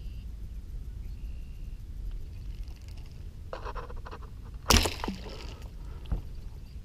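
Bowfishing bow and reel handled on a fiberglass boat deck while the arrow line is brought in: light rattles and scrapes, then one sharp, loud knock a little past two-thirds of the way through, over a steady low rumble.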